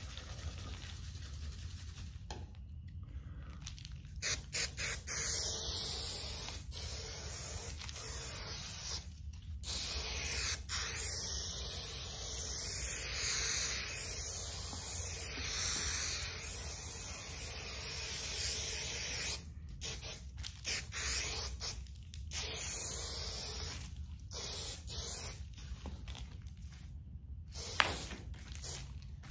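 3M Super 77 aerosol spray adhesive hissing from the can as it coats a panel with contact cement. The sprays are long with brief breaks through the middle and turn into shorter spurts near the end.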